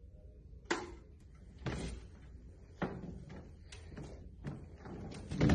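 A series of irregular knocks and clunks, about one a second, over a low steady hum; the loudest knock comes near the end.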